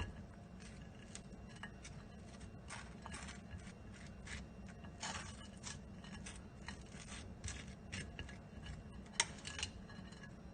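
Mashed avocado being spread across a slice of toasted bread: a utensil scraping the crisp toast in short, irregular strokes over a low steady hum.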